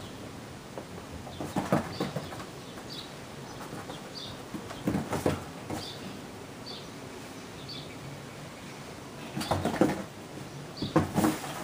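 Kittens' paws scrambling and scratching on a flattened cardboard box, in several short flurries of scratches and light thumps.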